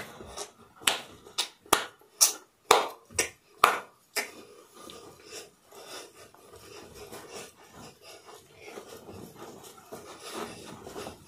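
Body percussion keeping a beat: about ten sharp clicks, roughly two a second, over the first four seconds. After that comes soft rustling of clothing as he moves.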